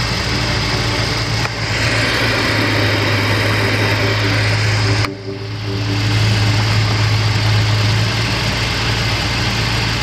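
Steady hum of a Subaru Impreza G4's air-conditioning blower with the engine idling. About a second and a half in, a hiss joins it as the evaporator cleaner aerosol discharges through its tube into the blower unit.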